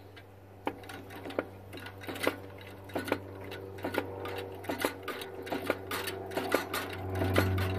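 Hydraulic pump pressing the stuck piston out of a 2 hp Witte engine's cylinder: a steady low hum with sharp metallic ticks and clicks at irregular intervals, about one to two a second, growing louder and more frequent. The hum swells about seven seconds in.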